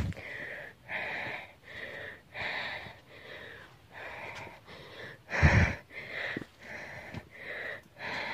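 A hiker panting hard, about two breaths a second, from the exertion of climbing toward the summit. A single low thump on the microphone comes a little past halfway.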